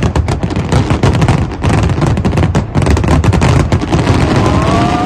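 Fireworks display: a rapid, continuous barrage of shells bursting and crackling, many bangs overlapping with no gap. A faint rising tone comes in about four seconds in.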